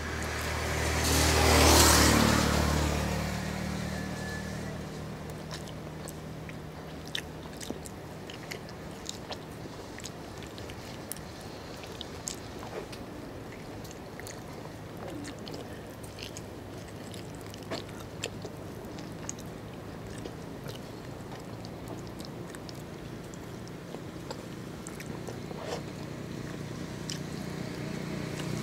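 A motor vehicle passes close by in the first few seconds and fades out. After that come the wet mouth sounds of gnawing and chewing meat off a pork rib bone, with small scattered clicks and smacks over a low background hum.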